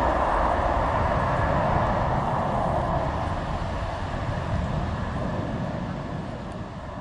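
Jet engine roar of a Boeing 767-400 at takeoff thrust as it climbs away, a steady rushing roar with a low rumble underneath that fades gradually as the aircraft recedes.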